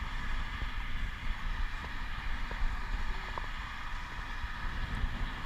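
Wind buffeting the microphone of a camera riding on a moving bicycle: a gusty low rumble over a steady hiss of the ride.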